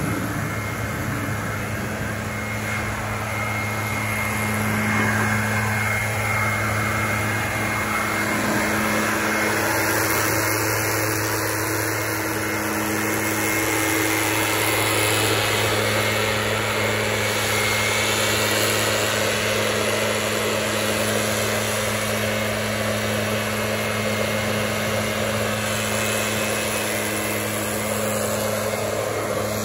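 Gas-powered backpack leaf blower running steadily at high speed, with a constant engine hum and a loud rush of air.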